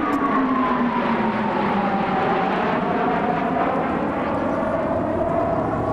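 Formation of F-15 fighter jets flying past overhead: a steady jet-engine roar with a whine that drops in pitch during the first couple of seconds as the jets pass and head away, then holds lower.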